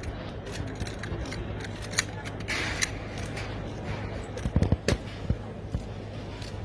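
AK-47 rifle parts being fitted back together by hand: scattered sharp metal clicks and clacks, with a cluster of louder knocks about four and a half to five seconds in.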